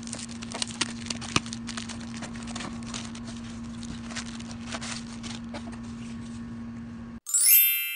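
Hands unpacking a cardboard shipping box: tape and cardboard flaps pulled back and plastic air-cushion packing rustling and crackling, over a steady low hum. The handling cuts off about seven seconds in, and a loud, bright chime sound effect rings out and fades.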